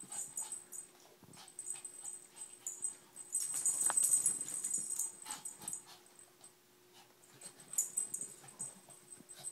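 Large Anatolian Shepherd and small Shih Tzu play-fighting: short bursts of breathy, scuffling noise, loudest about three to five seconds in and again near the end.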